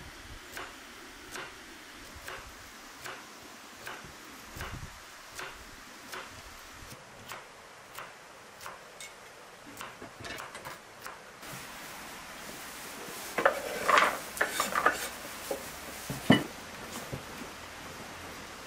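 Light knocks at a steady pace, about one every 0.8 s. About two-thirds through, a run of louder clatters of metal kitchenware being handled, including a large metal tray, ending with one sharp clank, the loudest sound.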